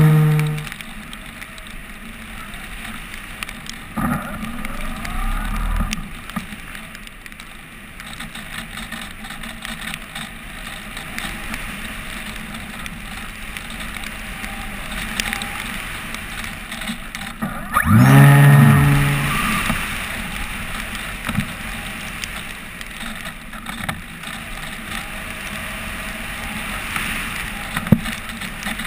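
Airflow rushing over a GoPro camera on a flying RC motor glider, a steady noise. The propeller motor's hum dies away just after the start, then runs up again for about a second and a half about two-thirds of the way through and falls in pitch as it cuts off.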